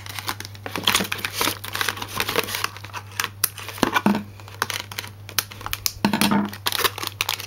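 Clear plastic toy packaging crinkling and rustling as hands work at it, in irregular crackles, over a faint steady low hum.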